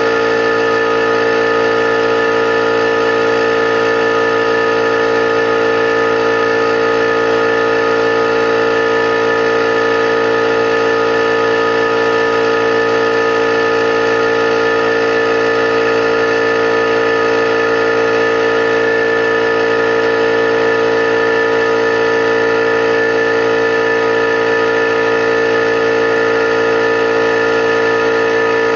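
21-gallon electric air compressor running steadily, pumping air into its tank as it fills toward its 130 psi cut-out. It holds one even pitch throughout, a constant hum with a strong whine in it.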